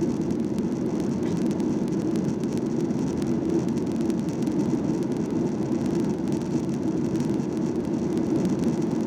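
Steady cabin noise of a Skymark Boeing 737-800 airliner in flight, a constant low rush of engines and airflow heard from inside the cabin.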